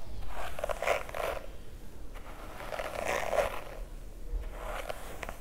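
Tangle Teezer Wet Detangler brush dragging through long wet hair in several slow strokes, a rough scraping rasp as its flexible bristles work through tangles.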